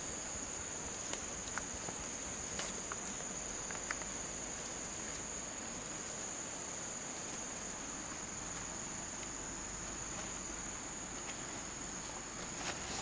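Crickets chirring: a steady, high-pitched trill, with a few faint clicks.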